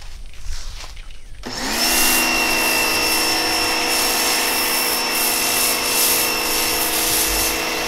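Pressure washer starting up about a second and a half in, then running at a steady pitch while its foam cannon sprays degreaser foam with a constant hiss.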